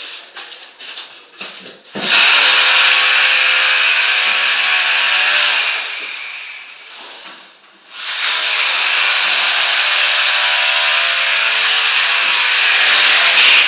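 A power tool runs in two long, steady spells of several seconds each, with a brief pause between them, after a few light knocks.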